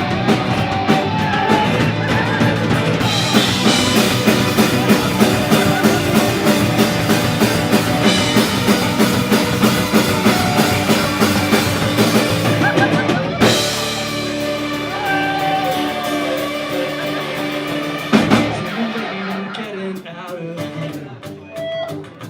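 A rock band playing live: drum kit and guitars at full band. About halfway through the drums drop out, leaving ringing, bending guitar notes that thin out and get quieter toward the end, with one more hit about two-thirds of the way in.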